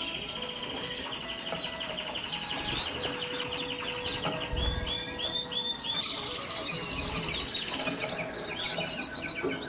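Canaries chirping: rapid runs of high, repeated chirps, with a fast trill about six seconds in.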